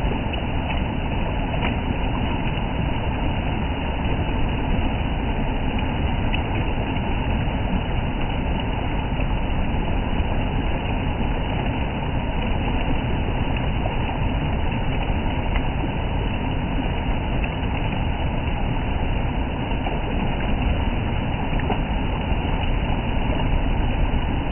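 Shallow stream water rushing over a flat rock ledge and down a small cascade step: a steady, unbroken rush, heaviest in the low end.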